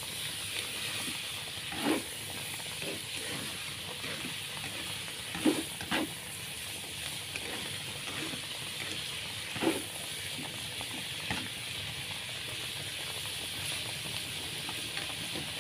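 Bitter melon stir-fry with anchovies sizzling steadily in a frying pan, with a few sharp knocks of the spatula against the pan as it is stirred.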